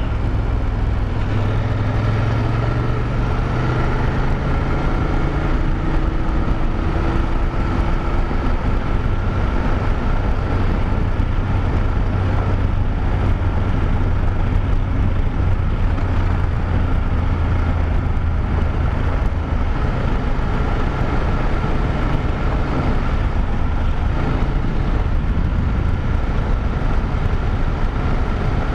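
BMW F850GS Adventure's parallel-twin engine running at a steady cruising speed on a dirt road, with steady wind and road noise. The engine note rises slightly in the first few seconds, then holds.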